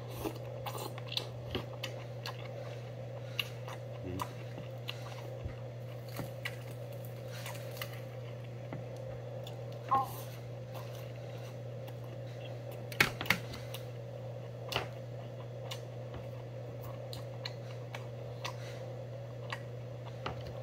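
Metal chopsticks clicking against a stainless steel rice bowl as rice is shovelled in and chewed, in scattered light clicks with a sharper pair about two-thirds of the way through. A steady low hum runs underneath.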